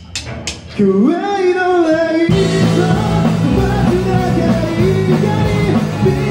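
Live rock band starting a song, with the bassist on five-string bass: a few sharp clicks, then one held note bending in pitch, and about two seconds in the full band comes in loud with heavy bass and singing.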